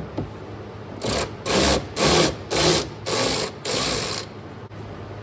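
Cordless electric ratchet run in six short bursts, backing out a small 5.5 mm screw on the heater-core hose port clamp.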